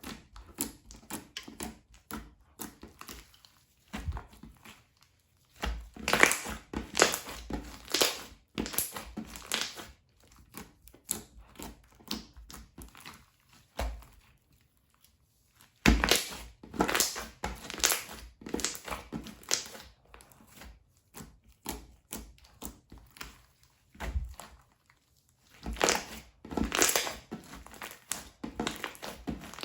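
Slime being squeezed and worked by hand, giving rapid crackling and popping clicks. The crackling comes in three louder spells roughly ten seconds apart, with softer crackles between.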